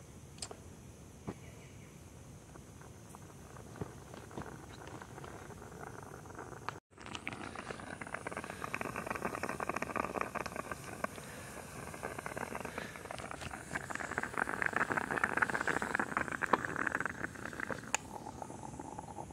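Stainless moka pot on a butane camping stove sputtering and gurgling as the brewed coffee spurts into the upper chamber: a dense crackling hiss that sets in about a third of the way through, grows louder, and eases off shortly before the end. Before it there are only faint small clicks.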